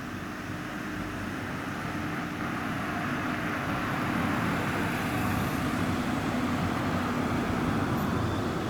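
A large bus engine drawing closer and growing louder over the first few seconds, then running steadily with road noise.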